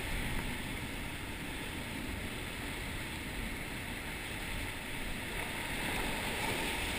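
Sea waves washing and foaming against shoreline rocks, a steady rushing of surf.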